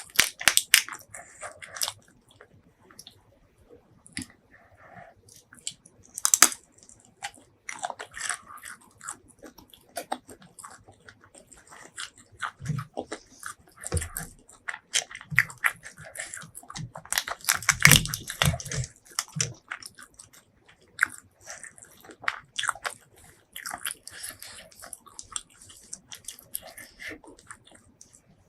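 Close-miked eating sounds: a person chewing and biting food with irregular clicks and smacks, louder about six seconds in and again just past the middle.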